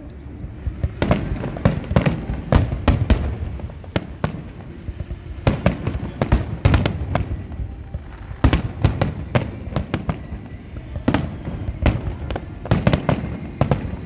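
Aerial fireworks display bursting: dozens of sharp bangs in irregular clusters, over a steady low rumble.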